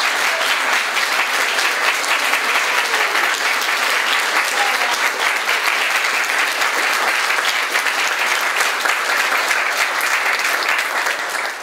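Audience applauding steadily, cut off suddenly at the end.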